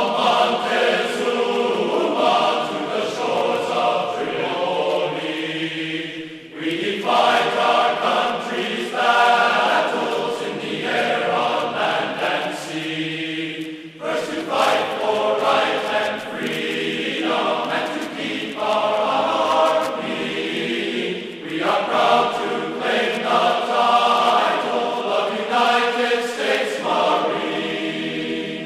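Background music of choir-like sustained chords, moving in phrases a few seconds long, with short breaks about a quarter and halfway through.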